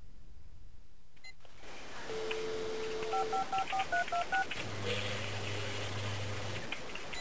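Telephone dial tone, then about seven quick touch-tone keypad beeps as a number is dialed, followed by a low steady tone.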